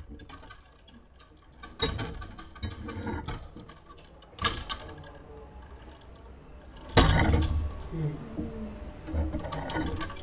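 Crickets chirring steadily and high-pitched, with a few sudden knocks and handling noises; the loudest knock comes about seven seconds in.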